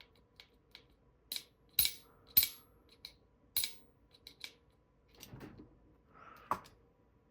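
Metal fidget toy being worked in the hands: a string of separate sharp metallic clicks and clinks, each with a brief ring, several in the first four seconds. Softer rubbing and one last click follow near the end.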